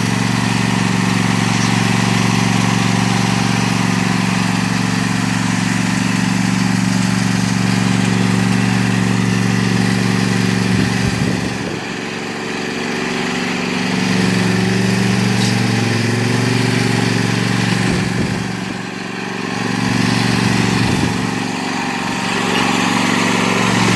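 Lawn mower engine running steadily. It dips in pitch and loudness twice, about twelve and nineteen seconds in, and each time climbs back up.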